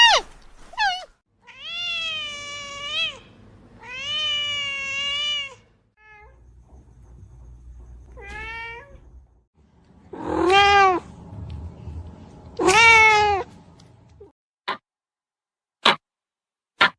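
Domestic cat meowing repeatedly: several drawn-out meows, two of them long, then shorter ones, followed by a few short clicks near the end.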